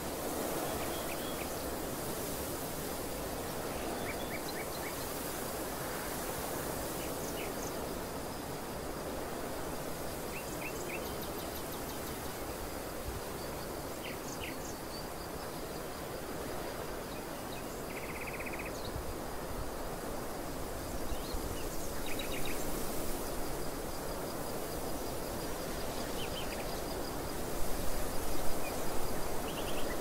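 Steady wind over an open field of green crops, with short chirps every few seconds and a faint steady high tone; the wind gusts louder near the end.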